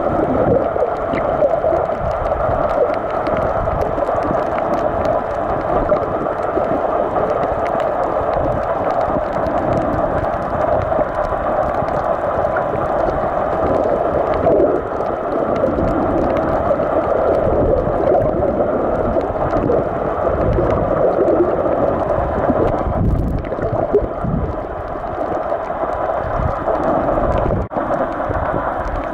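Muffled underwater noise picked up by a camera below the surface: a steady rushing hiss with uneven low rumbles of moving water, and a brief dip near the end.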